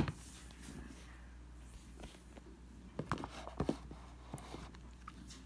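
An iPhone 13 Pro and a clear plastic phone case being handled: a knock right at the start, then a few light clicks and taps about three seconds in.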